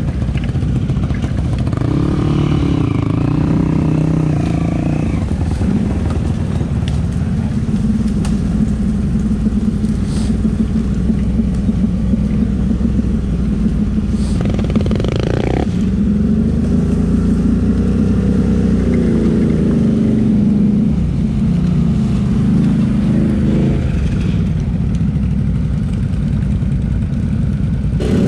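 Can-Am Renegade 800 ATV's V-twin engine running while riding, its pitch rising and falling with the throttle, with one sharp rev about halfway through.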